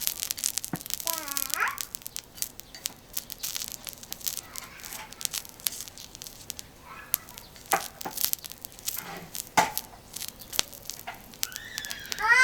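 Irregular crackling and popping from oil heating on a thick iron griddle being seasoned, many small sharp spits at uneven intervals.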